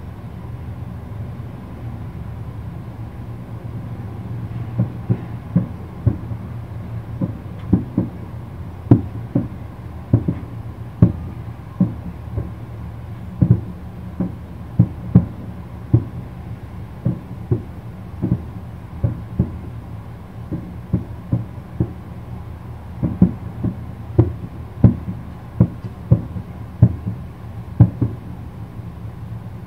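Distant aerial fireworks shells bursting: a string of dull booms at irregular intervals, starting about five seconds in, over a steady low hum.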